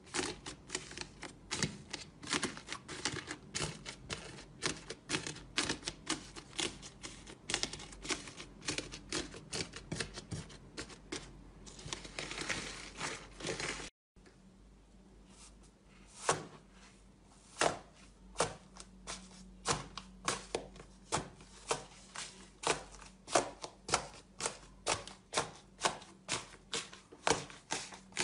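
Hands pressing and squeezing crunchy slime packed with foam beads: a steady run of sharp crackling clicks, several a second. The sound drops out briefly about halfway through, then the crackling goes on.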